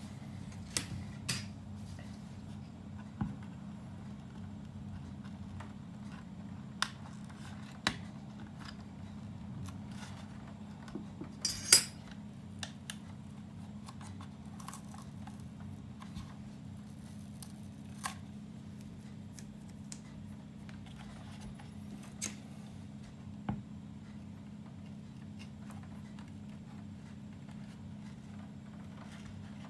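Scattered small clicks and taps of tools and parts being handled while an Asus Strix 7.1 amplifier is taken apart, with a sharper clatter near the middle. A steady low hum runs underneath.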